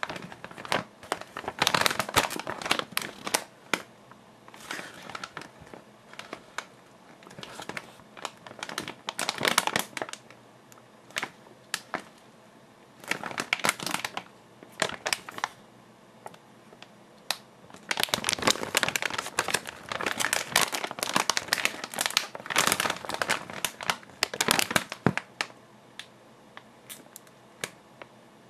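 A plastic snack bag crinkling as it is handled and turned over in the hands. The crinkles come in irregular bursts with short lulls between them, busiest in a long stretch in the second half.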